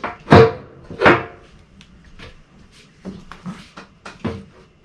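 Bare metal cafe racer fuel tank being fitted onto a motorcycle frame over its trimmed rubber mounting grommets: two loud knocks with a brief metallic ring about a third of a second and a second in, then a few lighter knocks and taps as it is settled into place.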